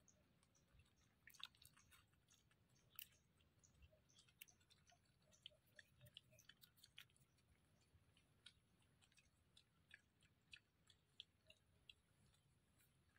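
Faint, irregular small clicks and crunches of a wild piglet chewing and rooting at food on the ground.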